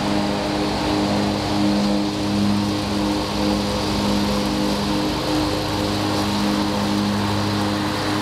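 Commercial walk-behind lawn mower's engine running steadily while cutting grass: a constant drone that swells and fades slightly.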